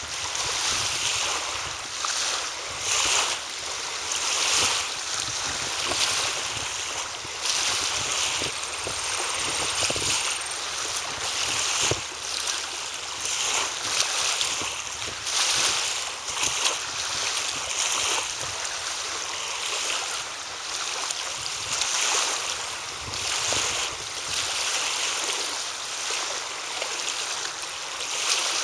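Steady rushing outdoor noise that swells and eases every second or two, with a few faint clicks.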